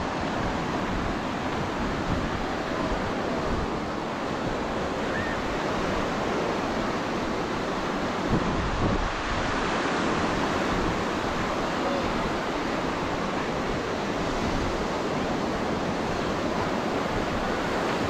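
Small ocean waves breaking and washing over the shallows in a steady wash of surf, with wind rumbling on the microphone and faint distant voices of a beach crowd now and then.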